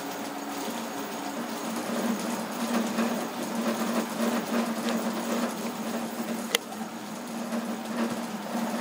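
CoreXY 3D printer with a belt-driven Z axis running, its stepper motors whirring over a steady hum. A single sharp click about six and a half seconds in.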